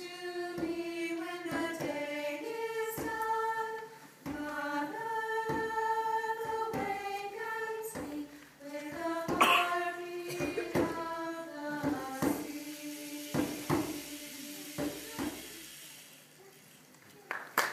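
A small group of women singing a song in harmony, with held notes that change every second or so. The singing dies away near the end.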